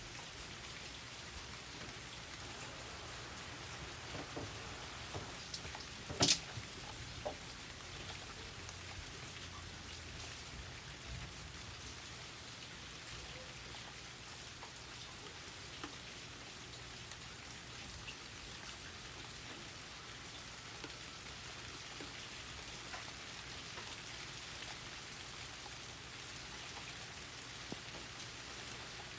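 Steady rain falling, an even hiss with scattered individual drops tapping; one sharp, louder tap about six seconds in.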